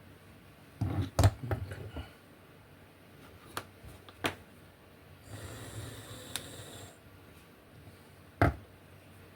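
Clicks and knocks of a small plastic kit car being handled, with a burst of knocks about a second in and a sharp knock near the end. In the middle a small electric motor whirs steadily for about a second and a half, then stops, as the drive wheel is tested against the tire that rubs on the circuit board.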